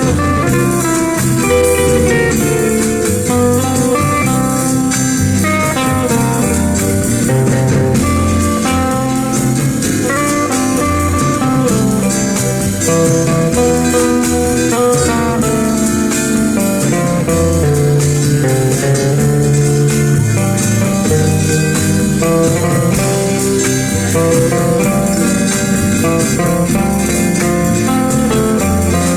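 Guitar-led instrumental music with a bluesy feel, playing steadily at full level.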